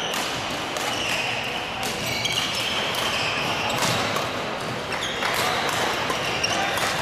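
Badminton rally: sharp racket hits on the shuttlecock a second or two apart, over background chatter in a large sports hall.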